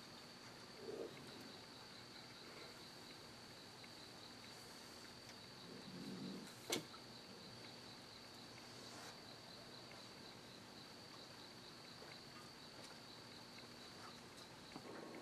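Faint night insect chorus, a steady high-pitched trill throughout. A brief rustle about a second in and a single sharp click about seven seconds in.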